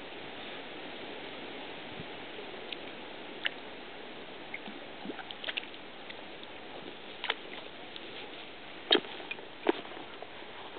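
Steady outdoor hiss with scattered light clicks and knocks from a person moving close to the microphone, the two loudest knocks near the end.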